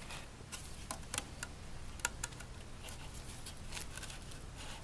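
Scattered light clicks and ticks of a thin carbon fiber tube spar being slid through the holes in the tail's ribs, over a low steady hum.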